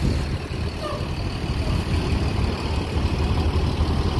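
Tour coach's diesel engine running at low, steady revs as the coach rolls slowly past at walking pace.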